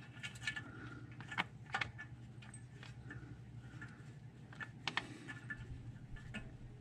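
Faint, scattered small clicks and metallic ticks as oily fingers thread a plug into a motorcycle's shaft final drive housing by hand, over a low steady hum.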